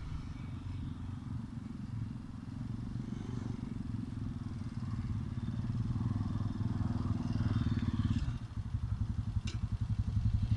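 Motorcycle engine running as the bike rides up a dirt track toward the microphone, growing louder. About eight seconds in the engine note drops to a slower, pulsing beat as the bike slows down on arrival.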